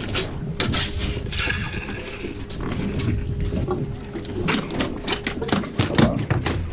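Red snapper flopping on a fiberglass boat deck: irregular slaps and thumps, most frequent in the second half.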